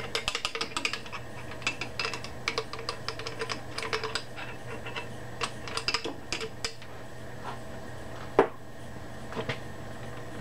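Clausing lathe apron gears clicking as the carriage handwheel is cranked by hand, the freshly oiled gears and pinion turning along the rack. Rapid, irregular clicks for about seven seconds, then only a few, with one sharp loud click past the middle.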